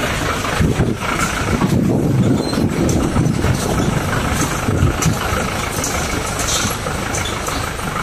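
Off-road vehicle's engine running as it drives along a rough, bumpy dirt forest track, heard from inside the cabin, with occasional knocks and jolts from the body over the ruts.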